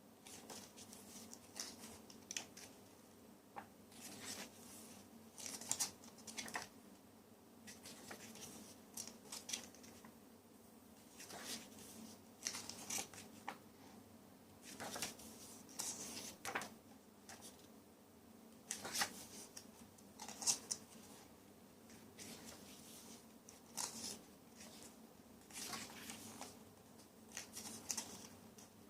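Paper handling: pages of a photo book being turned, with a short crisp swish of paper every second or two.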